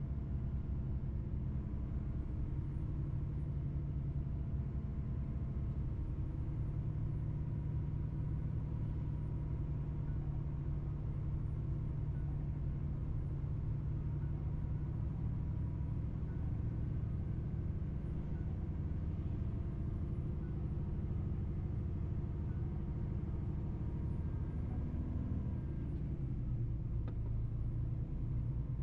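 Mercedes-Benz truck's diesel engine running under way, a steady low drone with road noise; near the end the engine note changes.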